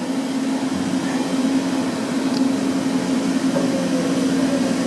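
Steady low machinery hum: a constant drone with an even hiss, and a faint falling whine near the end.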